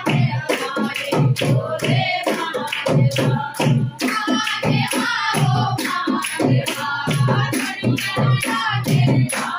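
A group of women singing together, with rhythmic hand clapping keeping the beat.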